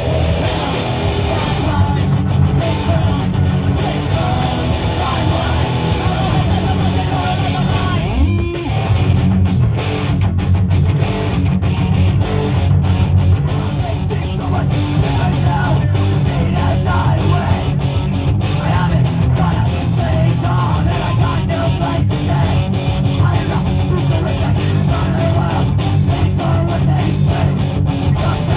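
Live punk rock band playing an instrumental stretch: distorted electric guitars, bass guitar and drum kit, with a brief break about eight seconds in.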